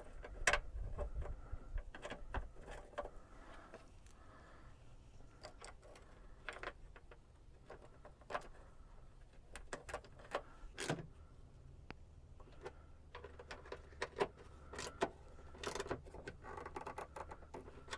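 Scattered light clicks and metallic knocks of a hand socket wrench and bolts being fitted and snugged down on the rear-door stabilizer receiver, at irregular intervals.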